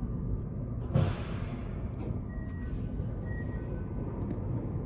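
Steady low rumble inside the cabin of the Kintetsu Shimakaze express train as it runs, with a sudden rush of noise about a second in that fades away over about a second.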